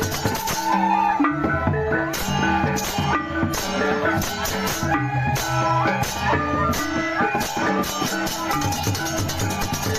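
Balinese baleganjur gamelan playing: held, ringing notes from tuned bronze gongs and kettle-gongs over fast, dense crashes of clashing cymbals and drumming.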